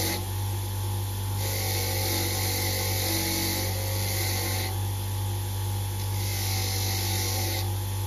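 Bench grinder motor running with a steady hum while a small metal part from the gearbox earth strap is pressed against its wire brush wheel in repeated passes, giving a hissing scratch that starts and stops every second or two. The brushing is cleaning white corrosion off the part to get a good earth.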